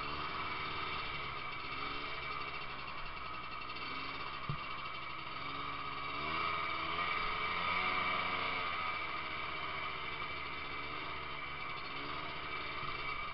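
Snowmobile engine running while riding over snow, its pitch rising and falling as the throttle changes and getting louder about six seconds in. One short knock about four and a half seconds in.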